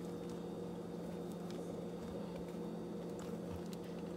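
A metal spoon scraping out the soft inside of a crusty sourdough boule, heard as a few faint crackles and clicks over a steady low electrical hum.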